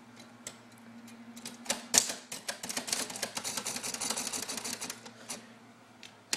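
Old typewriter being typed on: a few separate key strikes, then about three seconds of fast clattering keystrokes that thin out near the end.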